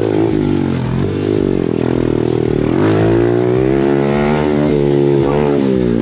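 A 110cc four-stroke pit bike engine running hard under load. The revs dip and climb again several times as the throttle is rolled off and back on.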